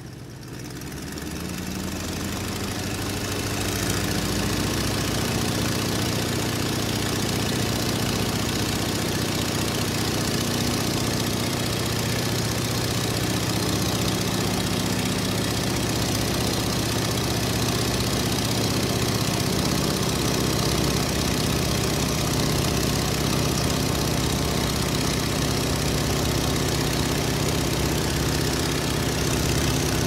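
Piston airplane engine heard from inside the aircraft, growing louder and a little higher in pitch over the first few seconds as power comes up from idle. It then runs steadily with a deep drone and a constant rushing hiss.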